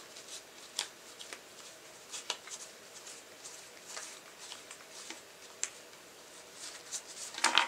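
Playing cards sliding and flicking against each other as a deck is spread and thumbed through between the hands: soft, scattered flicks and rustles that come thicker and louder near the end.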